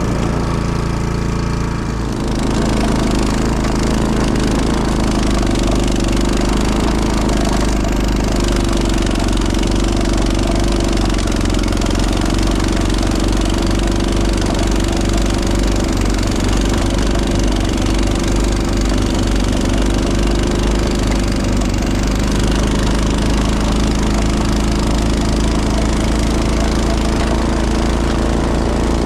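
Honda snowblower's engine running steadily under load, getting louder and fuller about two seconds in.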